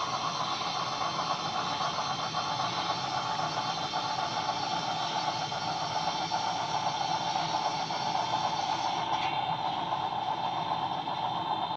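Sn3-scale model logging train, locomotive and loaded log cars, running along the layout track: a steady running noise with a strong midrange hum and hiss, without a clear beat.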